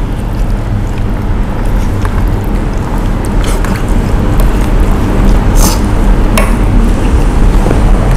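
Wet eating sounds and a few sharp clicks of a spoon against a plate of curry rice, over a loud steady low hum.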